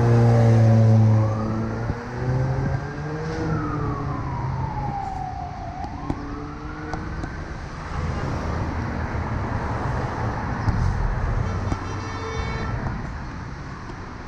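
Emergency-vehicle siren wailing, its pitch rising and falling slowly over several seconds, over a heavy low rumble that is loudest in the first second. Street traffic noise continues after the siren fades, about halfway through.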